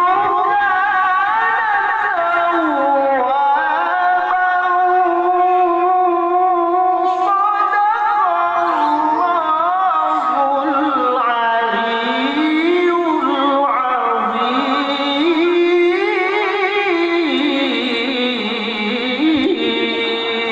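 A man's voice chanting long, ornamented melodic lines without a break, holding notes that slide up and down with a wavering vibrato.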